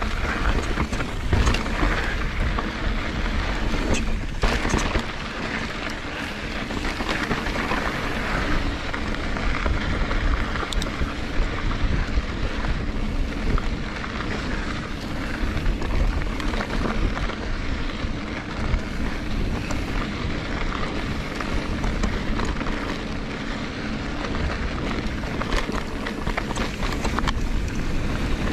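Wind buffeting the microphone over a mountain bike rolling across a rocky dirt trail, its tyres crunching on gravel and rock with frequent small clicks and rattles.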